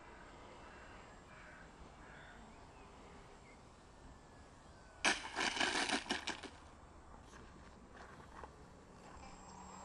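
Small electric depron-foam biplane landing on asphalt: a burst of clattering and scraping about halfway through, lasting about a second and a half, as it touches down and skids to a stop.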